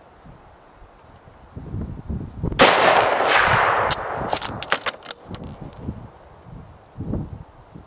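A single rifle shot about two and a half seconds in, its report dying away over more than a second. A quick run of sharp metallic clicks follows, with a few dull knocks from handling the gun before and after.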